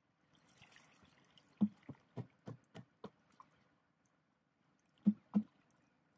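Water splashing and pouring off a plastic basket fish trap as it is lifted out of shallow water. This is followed by a run of about six sharp knocks, roughly three a second, and two more knocks near the end.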